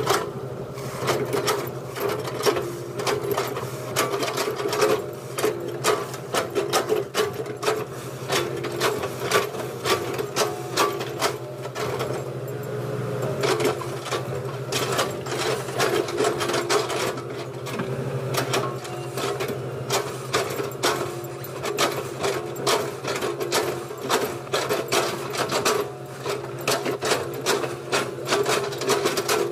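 Excavator engine running steadily, with rapid, irregular clattering and knocking of metal parts over the drone.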